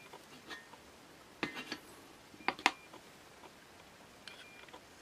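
Small metal parts clicking and clinking in the hand as a screw is threaded into a nut and set on a magnetic Phillips screwdriver: a few light clicks, then two sharp clicks about two and a half seconds in, the loudest, and a few faint ticks near the end.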